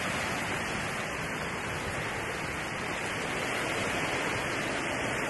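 Wind and heavy rain in a storm: a steady rushing noise.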